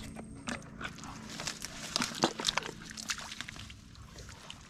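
Wet squelching and sloshing of rubber boots and hands working through soft mangrove mud and shallow water, with a quick run of sharp wet smacks and clicks about two seconds in.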